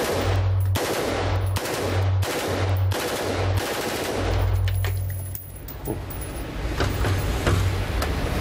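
AR-15 rifle converted to full automatic with an auto sear, firing about six short bursts one after another, the rounds running together in each burst. A few separate sharp cracks follow near the end.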